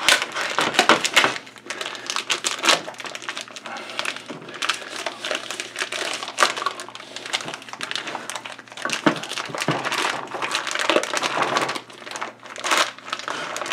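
Plastic bag crinkling and rustling with many irregular crackles as it is worked open and pulled off a smoked turkey breast.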